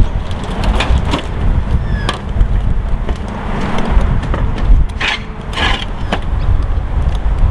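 Work on a tiled roof while a plastic dome skylight is removed: scattered knocks, clicks and a couple of short scrapes from tools and the dome frame, over a loud steady low rumble like wind on the microphone.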